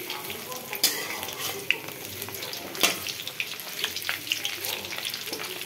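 Batter-coated cauliflower pakoras sizzling as they deep-fry in hot oil in a kadhai, with many small pops. A metal spatula turns them, giving a few sharp clicks against the pan, the loudest about three seconds in.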